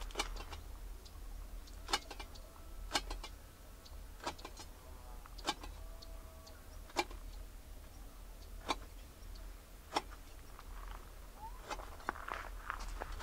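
Irregular sharp clicks and taps, roughly one every one to two seconds, with a quicker cluster near the end, over a low steady hum.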